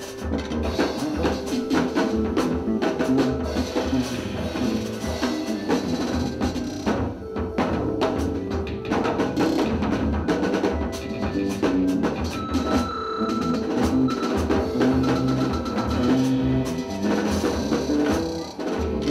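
Improvised jazz trio playing live: busy drum kit and percussion strikes over bass notes and held keyboard tones.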